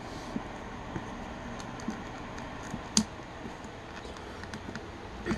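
Light clicks and taps of a plastic action figure being handled as its eyeball piece is pried at in the head socket, with one sharp click about three seconds in.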